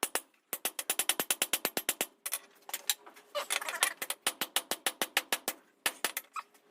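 Hand hammer striking hot steel on an anvil in quick runs of several blows a second, with a pause about two seconds in and a few last blows near the end, each blow ringing briefly. The steel is being forged into a knife-blade preform.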